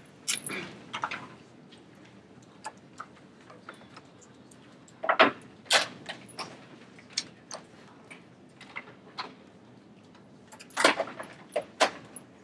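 Irregular clicks and taps of people handling laptops and desk items, with a few louder knocks about five to six seconds in and again around eleven seconds in, over faint room hiss.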